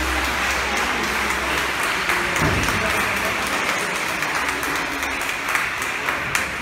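A crowd applauding steadily, a dense clapping with no single claps standing out.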